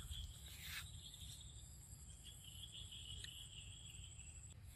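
Faint, steady chorus of crickets trilling high-pitched and continuously, with a second, lower trill joining about two seconds in.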